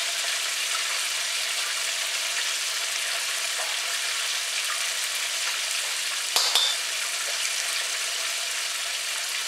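Battered chicken pieces frying in an electric deep fryer's oil at 350°F: a steady, even sizzle of bubbling oil. Two short sharp clicks come about six and a half seconds in.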